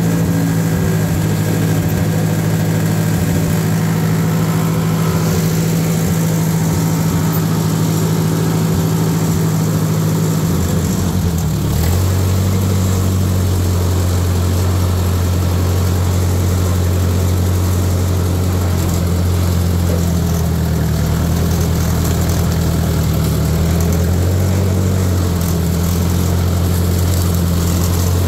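Ford 640 tractor's four-cylinder engine running steadily, heard from the driver's seat; its pitch drops noticeably about eleven seconds in and holds lower, wavering a little later on.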